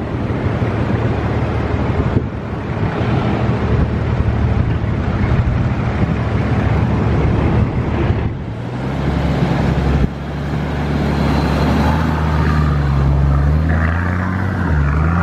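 Four-wheel-drive engine running with wind noise on the microphone; about eight seconds in a strong low engine note comes in and rises a little, as the engine works harder.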